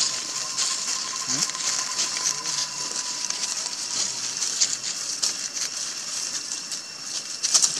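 Scattered crackling and rustling of plastic bags and food being handled by monkeys, over a steady high hiss. A faint steady tone runs through the first few seconds, and a flurry of louder crackles comes near the end.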